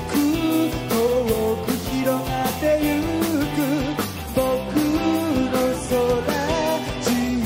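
Live band playing a pop-rock song: a man sings lead over drums, bass and electric guitar, with a steady beat.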